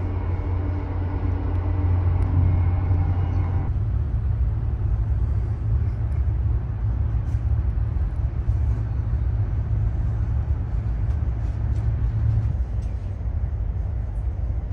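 Steady low rumble of a Fuxing high-speed train running at speed, heard from inside the carriage. For the first few seconds a steady hum with several tones sits over it, then stops abruptly about four seconds in, leaving the rumble and a few faint ticks.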